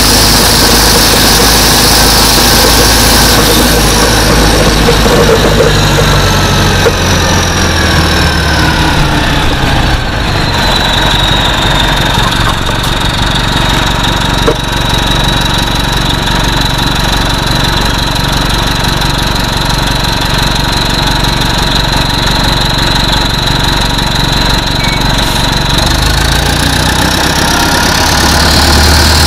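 TMC RTS-06 transit bus's Detroit Diesel Series 50 engine with its Allison V731 transmission, running down with a falling whine over the first ten seconds, then settling to a steady idle with a high whine. The engine rises again near the end.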